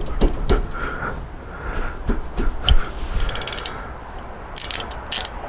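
A hand socket ratchet clicking in quick runs as a bolt is turned, about three seconds in and again near the end, with a few sharp metal tool knocks and clinks in the first second or two.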